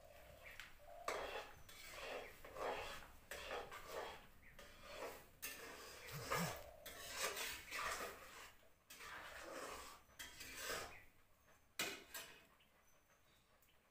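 Metal ladle stirring and scraping semolina porridge around a metal kadai: a run of irregular rubbing strokes, then two sharp knocks near the end.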